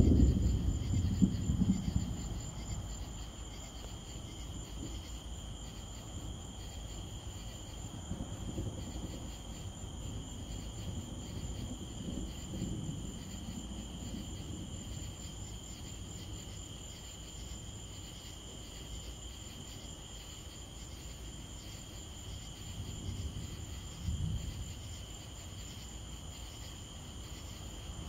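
Thunder rumbling and dying away over the first two seconds, then night insects trilling steadily, with fainter rolls of distant thunder, the clearest one near the end.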